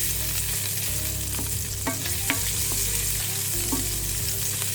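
Shallots, onion, ginger and garlic sizzling in hot olive oil in a pan, with a few clicks of a utensil against the pan as they are stirred.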